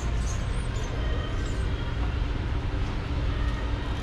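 Shopping cart rolling across a smooth store floor: a steady low rumble of its wheels.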